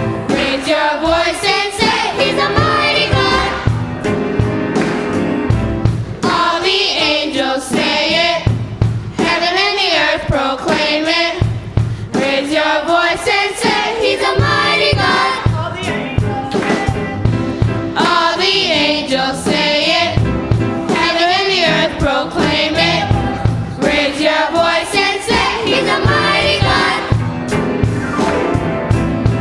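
Voices singing a gospel song with band accompaniment and a steady beat.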